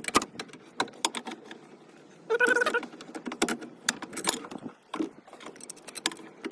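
Irregular metallic clinks and taps of hand tools on steel parts, with a brief louder scrape about two and a half seconds in, as a car's inner steering tie rod is fitted and tightened onto the steering rack.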